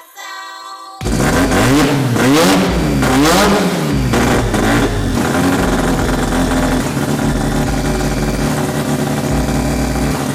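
Car engine revved hard, climbing and dropping twice, then held at high, steady revs.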